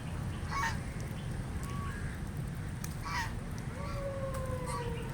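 Duck calling twice, two short harsh quacks about two and a half seconds apart, over a steady low rumble. A faint tone slowly falling in pitch comes in near the end.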